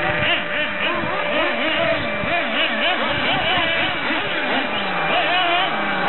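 Radio-controlled off-road racing cars lapping a dirt track, their motors revving up and easing off in quick, overlapping rises and falls in pitch.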